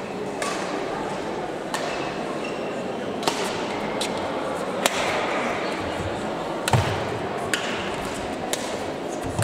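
Badminton shuttlecocks struck by racquets: sharp clicks at uneven intervals, about one a second, from a rally and the neighbouring courts, with a louder hit and a low thud about two-thirds of the way through. Under it runs the steady murmur of voices in a large sports hall.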